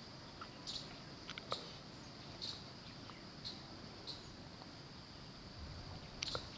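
Faint insect chirping: a steady high buzz with brighter short chirps about once a second, and a few light clicks.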